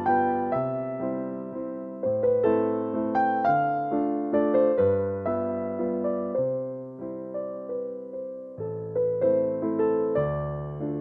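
Background piano music: a gentle melody of single notes over slow-changing bass notes, each note struck and fading away.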